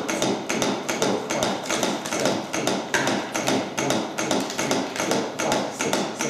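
CPR training manikin clicking under steady chest compressions: a quick, even rhythm of sharp clicks and knocks.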